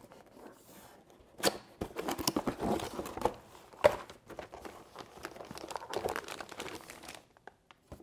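Cardboard motherboard box being opened and the board in its plastic wrapping lifted out: irregular scraping, tapping and crinkling of packaging, with two sharper knocks about a second and a half in and again about four seconds in.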